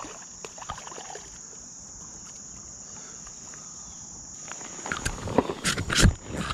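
Insects droning steadily at a high pitch. In the last two seconds, a cluster of loud knocks and splashes as a small catfish is pulled out of the water and handled on wooden dock boards.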